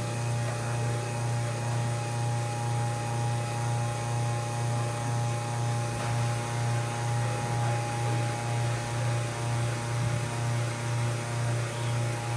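Water-vending delivery pump running, drawing water from the storage tank: a steady electric hum that wavers slightly in level, with a fainter higher whine.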